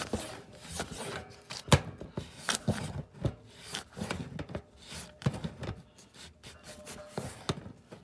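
An adjustable wrench clicking and clinking on a threaded steel nipple in a water heater's cold-water inlet as it is repositioned and turned a little at a time, with one sharper metal click about two seconds in.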